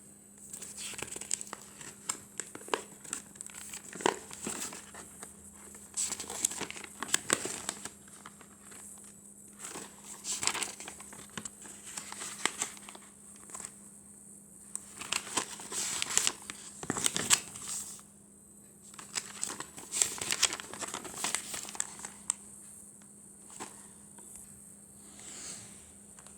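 Paper being handled and crinkled in irregular bursts of rustling and small clicks, over a faint steady hum.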